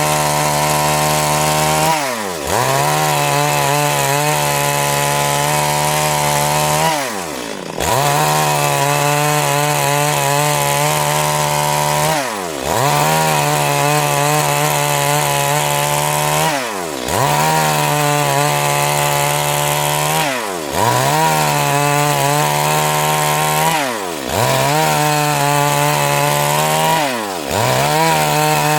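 Two-stroke Stihl MS 382 chainsaw running at high revs while sawing wood into boards. Its pitch dips sharply and picks up again about every four seconds.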